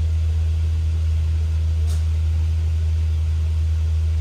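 Steady low rumble of a double-decker bus's engine and running gear heard from inside the upper deck, with a faint short tick about two seconds in.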